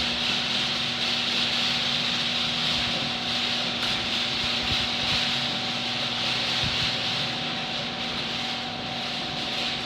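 Genie screw-drive garage door opener running as it lowers a door: a steady motor hum under a constant high-pitched rasp from the turning drive screw, very noisy.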